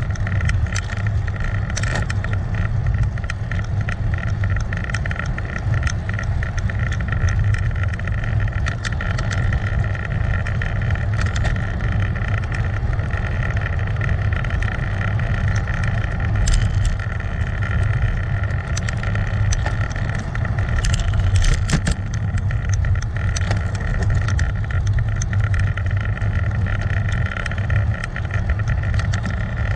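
Riding noise on a bicycle-mounted action camera: heavy wind rumble on the microphone over steady road noise, with many small clicks and rattles throughout.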